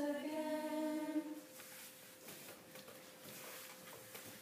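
A voice humming a held note, which stops about a second and a half in; after it a faint steady high tone continues over quiet room noise.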